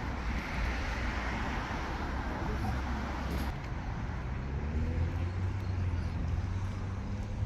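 Steady rumble of road traffic, with a passing vehicle's engine rising in pitch about five seconds in.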